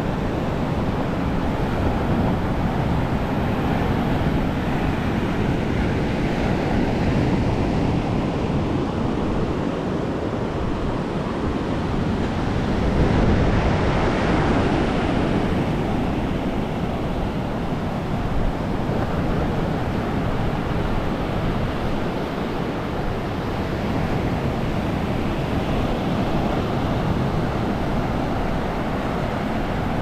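Surf breaking and washing up a sandy beach: a steady rush that swells about halfway through, with wind buffeting the microphone underneath.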